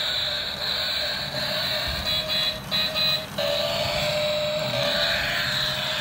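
Battery-powered toy car's built-in speaker playing an electronic sound effect: a tinny, steady tone that, from about three seconds in, comes in slightly rising sweeps about a second long.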